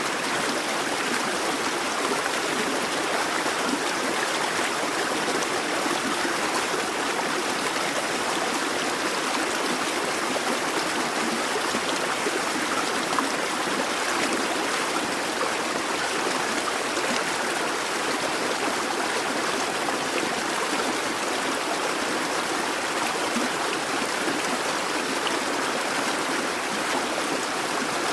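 Babbling brook: water running over stones in a steady, continuous rush and trickle.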